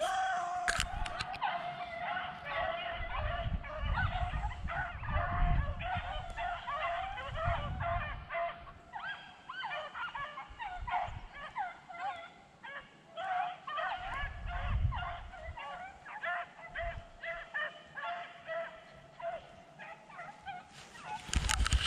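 A pack of beagles baying as they run a rabbit's trail: many short calls overlapping one another without a break.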